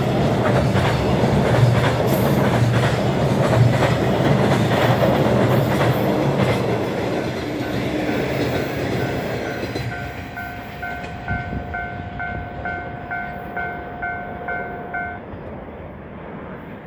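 Container wagons of a freight train rolling past, the wheels clacking over the rail joints, the noise fading as the train moves away. About ten seconds in a pulsing electronic warning tone starts, about two beats a second, and stops some five seconds later.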